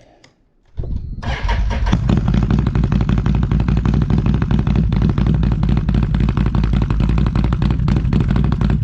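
Can-Am Renegade ATV's V-twin engine through RJWC dual aftermarket exhausts, starting up under a second in and then running loud and steady at idle.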